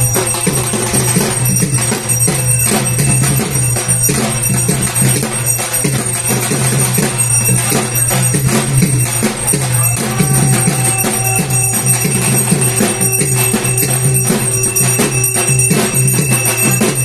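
Dhak drums beaten in a fast, dense, unbroken rhythm, with a metallic jingling over the beat.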